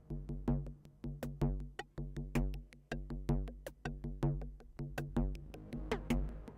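Electronic music from an iPad set-up: a drum-machine beat of low thumps and ticking clicks in a steady rhythm, under repeating short plucked notes that die away quickly.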